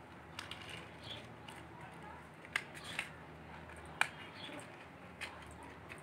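Sharp, separate clicks, four or five over several seconds, from lighting a small gas burner under an aluminium kadai, over a low steady hum.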